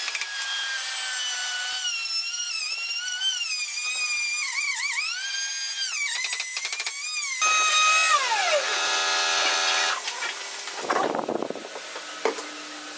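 Handheld plunge router's motor running with a high whine that dips and wavers in pitch as it cuts a slot in wood. About eight seconds in it is switched off and winds down with a falling whine. A short scrape and a click follow near the end.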